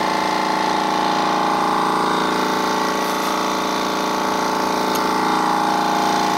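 Oil-free air compressor unit running steadily under load, an even, unchanging machine drone, as tank pressure climbs past 120 PSI close to its maximum.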